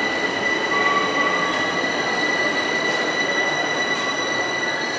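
Metro train at the platform, giving a steady high-pitched whine over a dense rushing hum.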